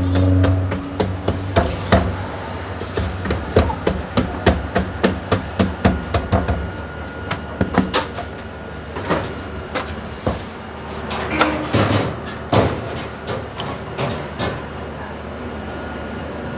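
Hands slapping and patting kaak dough flat on a worktop strewn with sesame seeds: a quick run of sharp slaps in the first half, then scattered ones. A low hum fades out about six seconds in.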